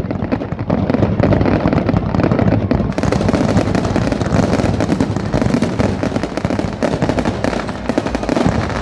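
Fireworks display in progress: a dense, continuous crackle and popping of many bursts going off close together.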